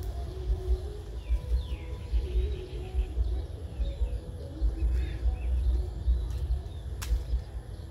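Outdoor ambience: a fluctuating low rumble with a few faint bird chirps, and a single sharp click about seven seconds in.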